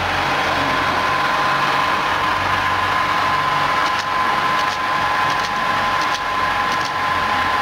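Bottle shrink-wrap packing machine running: a steady mechanical hum with a held tone, and a few faint clicks in the second half.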